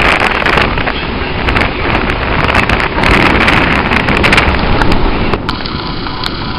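Wind buffeting the microphone on a moving boat: a loud rushing noise that swells and eases in gusts, easing somewhat near the end.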